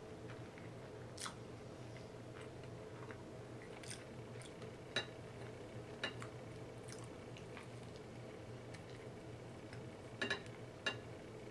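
Close-miked chewing of a sandwich: soft, scattered wet mouth clicks and smacks, with a few sharper clicks near the end, over a steady low hum.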